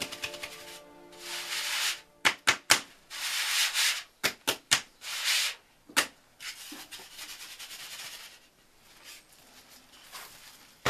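Flour being sifted through a wooden-rimmed sieve over a metal basin: bursts of dry rubbing hiss as the sieve is shaken, broken by sharp knocks of the sieve against the basin, three quick ones, then three more, then a single one, before the rubbing turns quieter.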